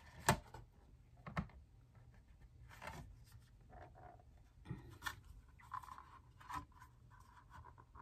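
Hands struggling with the stiff snap lid of a plastic Angora watercolor paint case: sharp plastic clicks and knocks near the start and again after about five seconds, with faint scraping and rubbing of plastic between.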